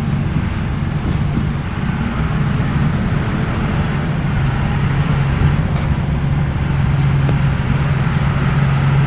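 Bulldozer's diesel engine running steadily, a continuous low drone with a few faint ticks over it in the second half.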